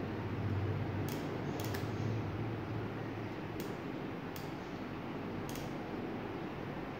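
Sharp mechanical clicks from the trigger of an automatic solder-feed soldering gun, about six at irregular intervals, as it feeds solder onto a lithium-ion cell terminal. A steady low hum runs underneath.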